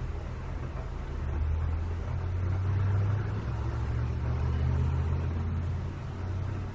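A deep, low rumble that swells about a second in and eases off near the end, over a steady low hum.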